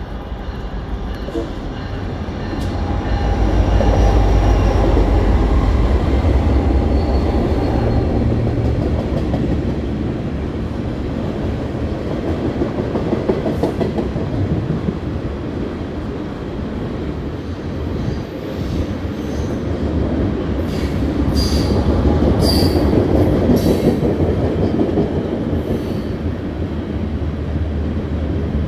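Freight train passing: the diesel locomotives' low rumble swells and peaks a few seconds in, then a long string of freight cars rolls by. Several short high-pitched wheel squeals come about two-thirds of the way through.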